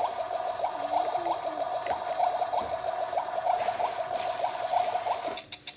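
Toy play kitchen's electronic cooking sound effect: a steady tone with quick rising blips repeating about three times a second, like bubbling, from the misting toy pot. It cuts out briefly near the end.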